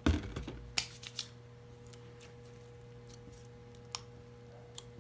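A thump, then a few scattered sharp clicks and snaps: sticky glitter slime being pressed and pulled off a countertop by hand.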